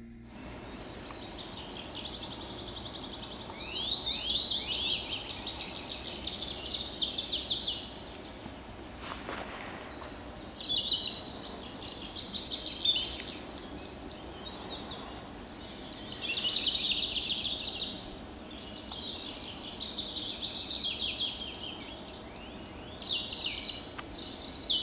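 A songbird singing about eight separate phrases of fast, high, trilled notes, each two to three seconds long with short pauses between, over a steady low background noise.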